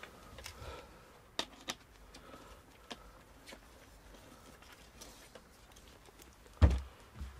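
Handling of a DSLR camera being screwed onto a metal tripod gun rest's camera thread: scattered faint clicks and rubbing, then two dull knocks near the end.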